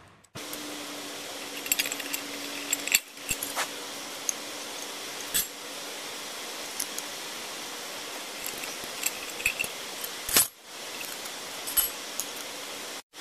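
Small steel parts clinking: bolts, washers and nuts being picked up and set onto a lawn mower's steel blade disc, in scattered sharp clicks. A steady hiss of rain runs underneath.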